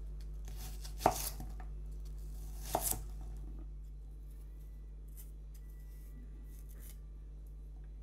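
Chef's knife slicing through an onion onto a wooden cutting board: two sharp chops about a second and a half apart, then only a low steady hum.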